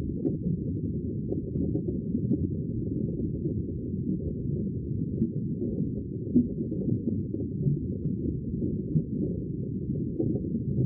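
Sea water making a deep, muffled, steady rumble with small swells in loudness and no high hiss.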